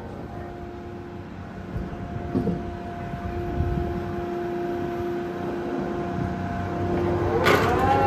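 Heavy construction machinery running: a low rumble with a steady whine, followed by a louder burst of shifting tones near the end.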